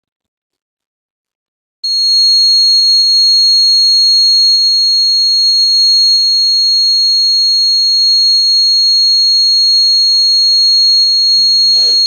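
A continuous high-pitched electronic tone, like a piezo buzzer, switches on suddenly about two seconds in and holds steady at one pitch. A brief knock comes near the end.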